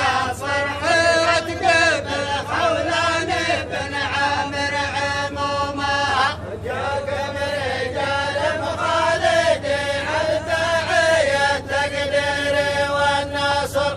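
Men's voices chanting a Faifi tarh, a tribal poetic greeting chant, in long drawn-out melodic phrases. There is a short break for breath about six seconds in.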